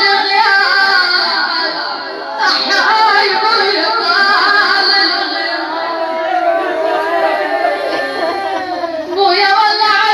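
A woman's voice chanting an Arabic mourning lament (nai), with wavering, ornamented pitch turns and long held notes in the middle.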